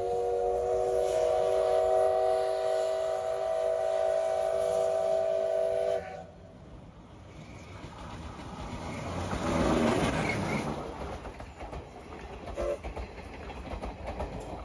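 A Moka Railway steam locomotive's whistle sounds one long blast of several notes at once, lasting about six seconds and cutting off sharply. The train then approaches and passes close by: a rising rumble that is loudest about ten seconds in, followed by the coaches clattering over the rail joints.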